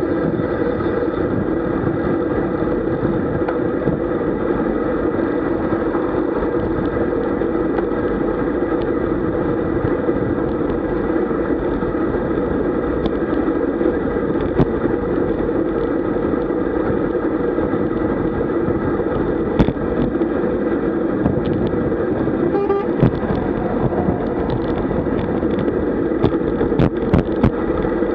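Steady wind rush and road rumble on an action camera mounted on a road bike moving at about 40 km/h. Several sharp clicks or knocks come in the last few seconds.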